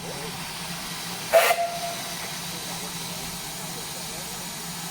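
Whistle of GWR Modified Hall 4-6-0 steam locomotive No. 6990 giving one short blast about a second and a half in, a sharp hissing burst that settles into a brief steady tone. A steady hiss of steam runs underneath.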